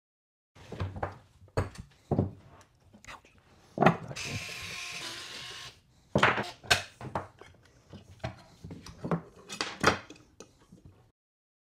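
Hands taking apart a robot's plastic leg shells on a wooden tabletop: a run of clicks and knocks as parts and tools are picked up and set down, with one sharp knock about four seconds in. Right after it comes a steady noise lasting about two seconds.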